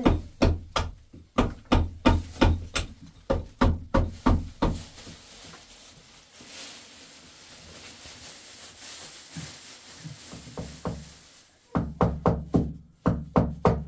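Steady rhythmic knocking, about two to three sharp strikes a second, that stops about five seconds in and starts again near the end.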